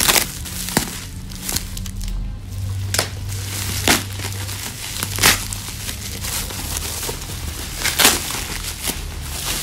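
Plastic bubble wrap crinkling and rustling as it is pulled and squeezed off a football boot, in irregular sharp crackles over a low steady hum.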